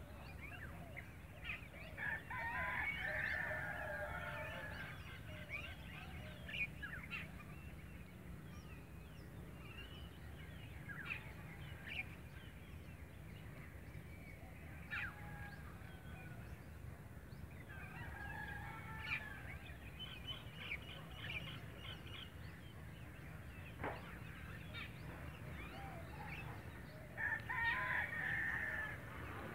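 Distant domestic fowl calling: three drawn-out crowing calls, one near the start, one midway and one near the end, among many short chirps of small birds, over a steady low rumble.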